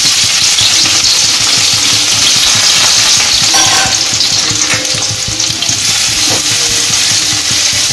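Sliced shallots sizzling steadily in hot coconut oil in an aluminium wok, being stirred with a spoon.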